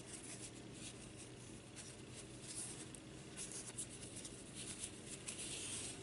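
Faint rustling and scratching of a fabric strip being wrapped by hand around a small ring, with a few brief soft scrapes.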